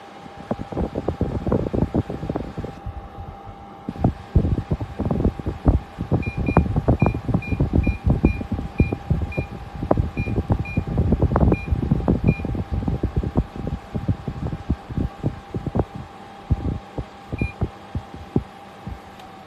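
Control-panel beeps from a LifePro DH24 dehumidifier: about a dozen short, identical high beeps at roughly two a second, then one more beep near the end, as buttons are pressed. Irregular low thumps and knocks run throughout and are the loudest sound, over a steady hum.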